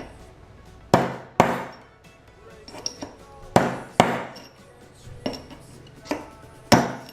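Hammer blows on metal, knocking an old bushing out of a 4L60E transmission sun gear: sharp strikes, some in quick pairs, each with a short metallic ring.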